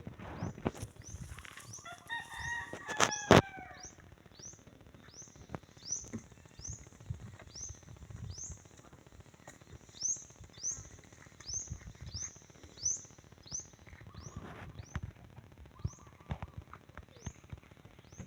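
A rooster crows once, about two seconds in, a call lasting nearly two seconds that drops in pitch at the end. A sharp click comes near its end. Behind it, a short, high rising chirp repeats steadily about every two-thirds of a second.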